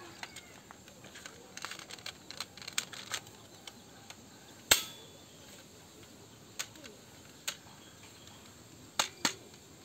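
A series of sharp, separate clicks and snaps: a quick run of small ones, then one loud snap about halfway, then a few single clicks, two close together near the end.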